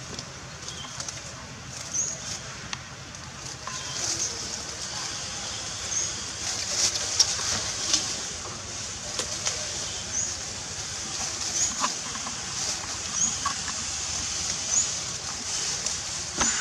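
Forest ambience: a steady high-pitched hiss with short high chirps every second or two and a few faint clicks.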